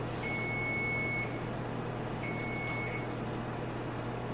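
Oven's electronic beeper sounding two steady high-pitched beeps, the first about a second long and the second a little shorter, over a steady low hum.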